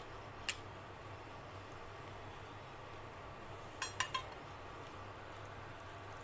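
Stainless-steel dishes clinking: one clink about half a second in, then three quick clinks around four seconds in as vegetable bhaji is tipped from a steel bowl onto a steel plate, over a faint steady hum.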